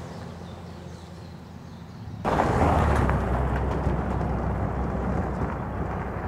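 A pickup truck's engine running with a steady low hum, then, about two seconds in, a sudden switch to a much louder rumble of a pickup driving off down a gravel road.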